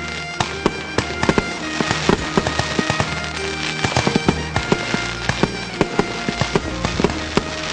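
Fireworks going off in quick irregular succession, many sharp pops and cracks a second, over background music with long held notes.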